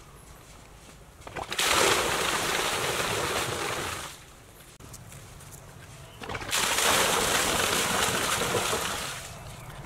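Water gushing from inlet pipes into a full concrete pool, splashing and churning on the surface. It comes in two loud stretches, a couple of seconds in and again past the middle, with quieter gaps between.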